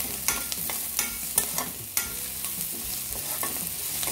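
Chopped onion and garlic sizzling in oil in a stainless steel kadhai while a spatula stirs them, with several sharp scrapes and knocks of the spatula against the pan over a steady sizzle. The onion is being sautéed until it turns reddish.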